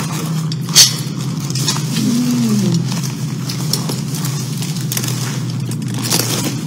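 Eating sounds of a meal taken by hand: food handled and chewed, with a sharp click about a second in, over a steady low hum.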